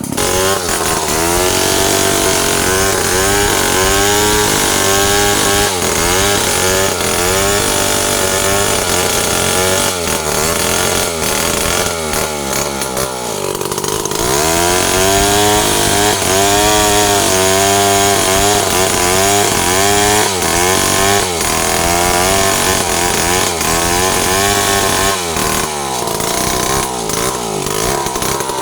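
Stihl chainsaw running at high revs while cutting wood, its engine pitch dipping and climbing again and again as the chain bites and frees, with a few deeper drops in pitch under heavier load.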